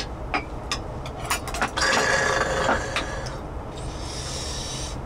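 Eating at a table: several sharp clicks of chopsticks and spoons against metal bowls and dishes, then a louder, longer noise of handling food about two seconds in, over a steady low hum.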